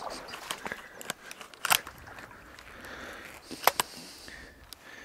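Dry reeds and cattails rustling and crackling as someone pushes through them, with sharp snaps, the loudest about a second and a half in and again near four seconds.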